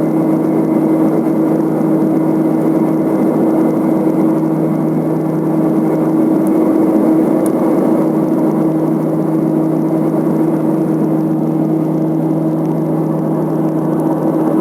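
Let L-410 twin-turboprop airliner's engines and propellers running at a steady setting: an even drone with a strong, unchanging hum.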